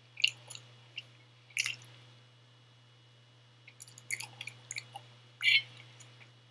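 Close-miked eating sounds of a person eating pasta: wet chewing and mouth smacks in scattered short bursts, the loudest about five and a half seconds in.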